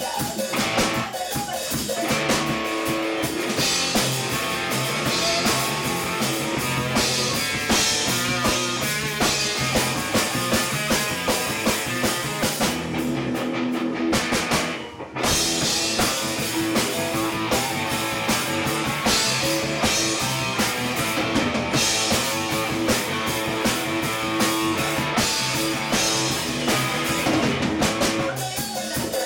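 Live rock band playing with no vocals: drum kit, electric guitar and bass. The cymbals and highs drop out briefly just past halfway, then the full band comes back in.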